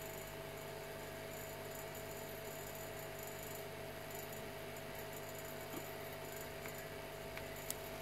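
Faint steady electrical hum and hiss with a thin steady whine, and a couple of small ticks near the end.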